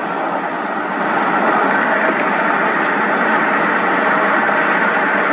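Steady road noise of a car cruising at highway speed, heard from inside the cabin: an even rush of tyre and wind noise with the engine underneath.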